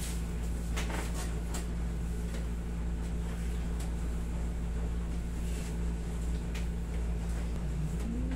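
Steady low hum of a room air conditioner, with a few faint soft clicks and rustles as hands work over a shirted shoulder during a massage, and a short low voiced hum near the end.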